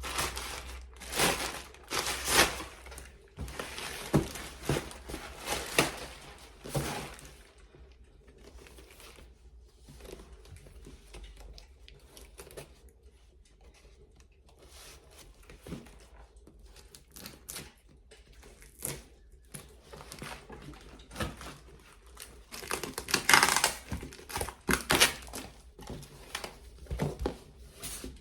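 Packaging crinkling and tearing as a parcel is opened by hand, in bursts of rustling during the first several seconds and again a little over twenty seconds in, quieter between.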